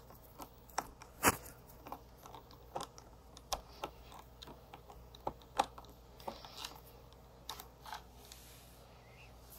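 Scattered light clicks and taps of a small screwdriver and plastic parts as the screw holding a Roomba's side brush is tightened. One tap about a second in stands out above the rest.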